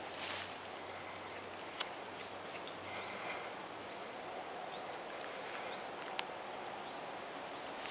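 Handmade knife carving a notch into a wooden stick: quiet scraping of the blade through the wood with a few sharp clicks as cuts bite in, three of them, against steady outdoor background noise.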